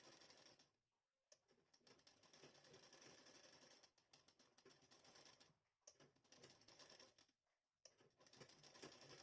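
Sewing machine stitching a seam, heard faintly as a rapid, even ticking that stops briefly three times as the fabric is guided.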